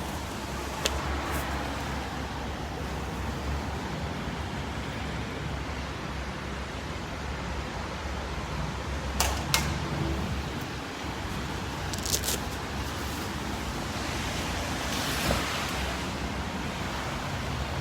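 Steady hiss of rain with a low rumble of road traffic, broken by a few sharp clicks: one about a second in, two close together about halfway through, and more a few seconds later.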